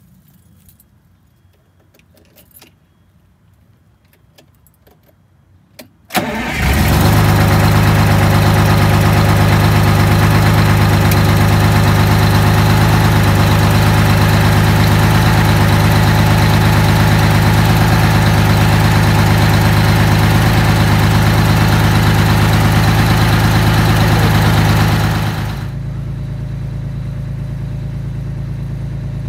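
Detroit Diesel bus engine cold-started from the rear engine bay: a few light clicks, then about six seconds in it fires and catches almost at once and settles into a steady, loud idle. For the last few seconds the idle sounds more distant and quieter.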